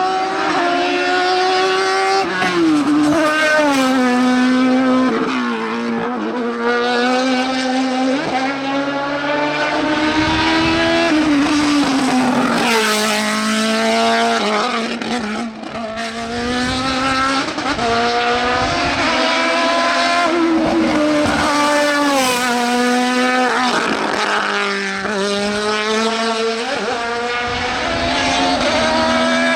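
Race car engine at high revs on a hillclimb run, its pitch climbing again and again and dropping back sharply with each gear change or lift off the throttle.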